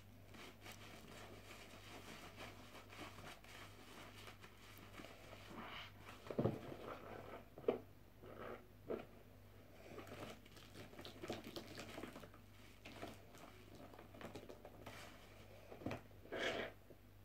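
Wet bath sponge squeezed and scrubbed in soapy foam in a plastic basin: soft, irregular squelching and crackling of bubbles, with a few louder squelches about six to eight seconds in and again near the end.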